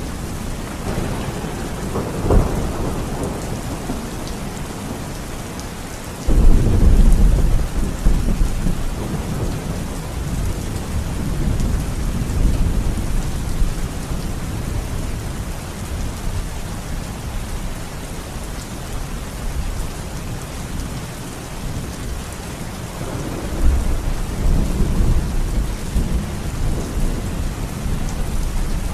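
Heavy rain falling steadily, with thunder. There is a short crack about two seconds in, a sudden loud clap about six seconds in that rumbles on for several seconds, and another long rumble near the end.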